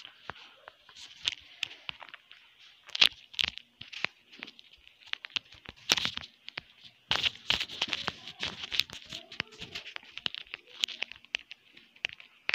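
Irregular crackling and rustling with many sharp clicks, typical of hands handling a smartphone close to the microphone, denser in the second half.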